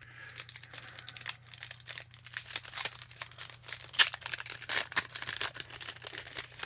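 Foil wrapper of a Topps trading-card pack crinkling and crackling as it is handled and torn open, with the sharpest crackle about four seconds in.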